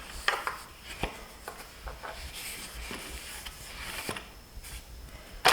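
Scattered light clicks, knocks and rubbing from a bicycle repair stand's clamp head being turned while its locking teeth are worked loose, with a sharper click near the end.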